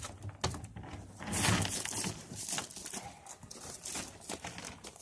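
Knocks, scrapes and rustling as a door unit is lifted and worked into the doorway, with a louder scraping rush about a second and a half in.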